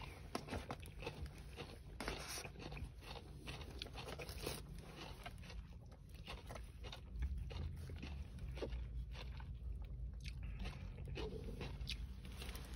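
Close-up eating: biting and chewing fried chicken tenders and Texas toast, with many small, irregular crunches and mouth clicks over a low steady hum.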